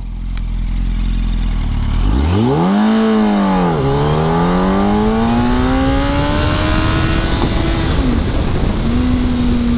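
Onboard sound of a 2006 Yamaha R1's inline-four engine with GYTR slip-on exhausts accelerating hard: after a low rumble, the revs climb steeply, fall back about four seconds in, climb again more slowly, dip briefly about eight seconds in as it changes up, then hold steady at cruising speed.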